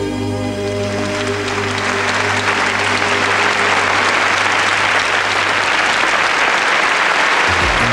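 Theatre audience applauding, the clapping swelling over the first two seconds, while the song's final low chord holds underneath. New music with a beat starts near the end.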